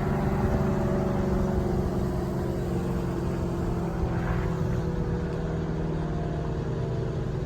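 ACA Allertor 125 electromechanical siren winding down after its steady alert tone, its pitch falling slowly. A steady low rumble runs underneath.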